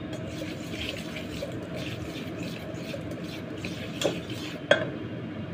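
Wire whisk beating a thick egg-and-flour batter in a stainless steel bowl, a steady wet swishing in quick strokes. Two sharp clinks of metal against the bowl come about four seconds in.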